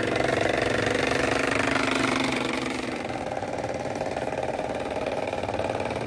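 Small engine of a miniature PVC walking tractor, built to sound like a paddy-field diesel, running steadily with a rapid knocking beat as the toy drives itself. It eases slightly about halfway through.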